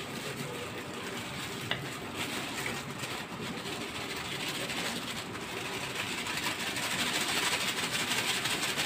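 Gram flour (besan) poured from a bag onto chopped potatoes in a steel bowl: a steady soft hiss that grows louder over the last few seconds, with one light click about two seconds in.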